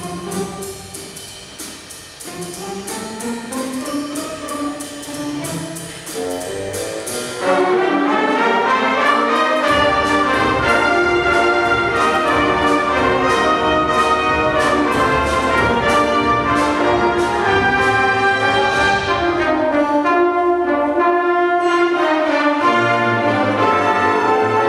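Symphony orchestra playing: a softer passage with rising melodic lines, then the full orchestra comes in loudly about seven and a half seconds in, with the brass to the fore.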